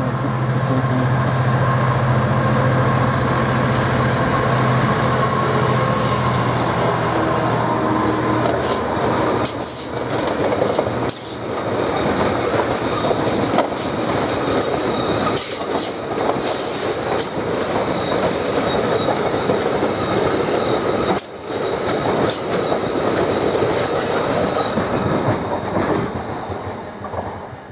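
A Class 66 diesel locomotive runs past with a steady engine drone over the first several seconds. A long rake of hopper wagons follows, rumbling and clacking over rail joints and points with some wheel squeal, and the sound drops away near the end as the train clears.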